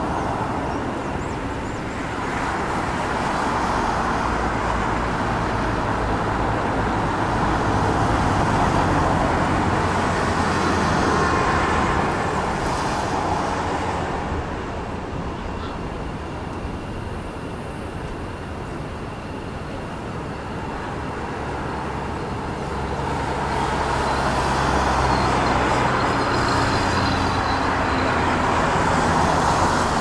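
Road traffic going by, the sound swelling as vehicles pass, easing off in the middle and rising again near the end.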